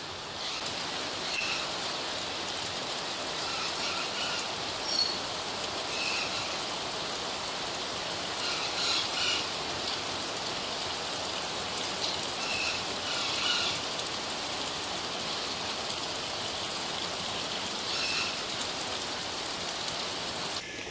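Steady rain falling, with short high bird calls a few times.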